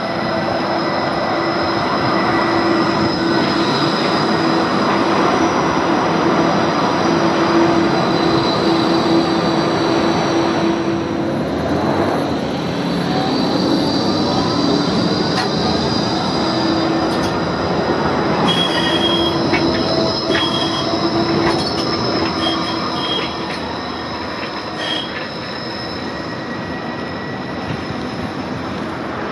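Bombardier Flexity 2 light-rail tram running along the track and passing close by, with steady high-pitched wheel squeal and an electric whine that glides in pitch about halfway through. Short high chirps come and go in the second half.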